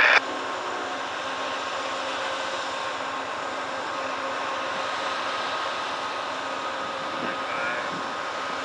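Amtrak diesel locomotive running steadily at a standstill: a constant engine and fan hum. A brief loud burst cuts off at the very start.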